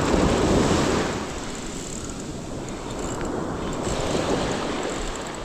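Surf washing on the beach, with wind buffeting the microphone; the wash is loudest in the first second, eases, then builds again toward the end.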